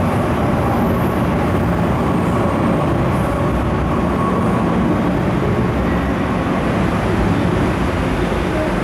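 Metro train running past a station platform: a steady, even rumble of wheels and running gear that does not let up.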